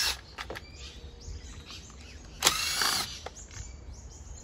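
Cordless impact driver run in one short burst about two and a half seconds in, backing a screw out of the outboard's plastic electrics cover. Faint birds chirp in the background.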